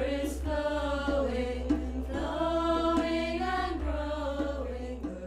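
Meditative chanting voices holding long, sliding notes over a steady low drone, fading out near the end.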